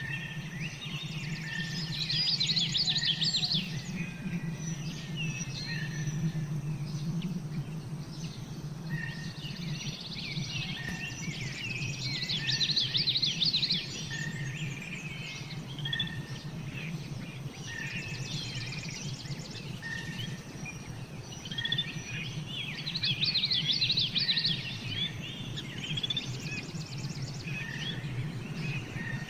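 Birds chirping, with many short calls. About every ten seconds, three times in all, comes a loud burst of rapid trilled song lasting about two seconds, over a steady low hum.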